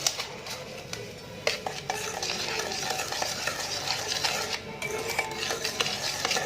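A utensil stirring thick chocolate cake batter in a bowl, scraping and clicking against the bowl as the flour and cocoa mix is worked in, with a few sharper taps.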